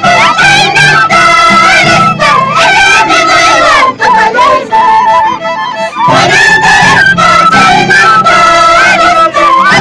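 Live Andean folk music on violin and harp with high-pitched women's singing; the singing thins out and the music grows quieter for a moment around the middle, then comes back in full.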